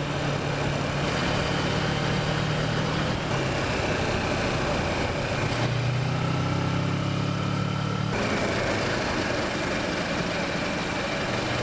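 Kawasaki Versys motorcycle engine running at steady, low revs while riding, its note shifting for a couple of seconds midway, with steady road and wind noise.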